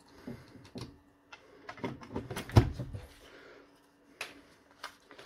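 Hard plastic clicks and knocks as a DeWalt 18V battery pack's casing is handled and fitted back together. The heaviest knock comes about two and a half seconds in.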